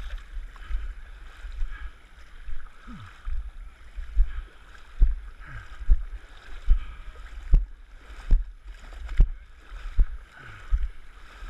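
Wading at a steady stride through knee-deep muddy lake water: the water sloshes and splashes, with a sharp thump on each step a little more than once a second.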